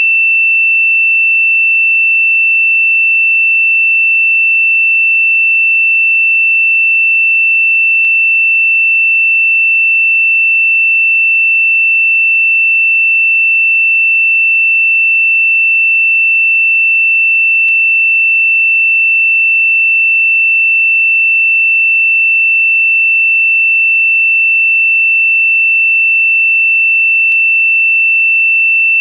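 A single electronically generated sine tone, high-pitched and perfectly steady, played as a meditation frequency. Three faint clicks fall about ten seconds apart.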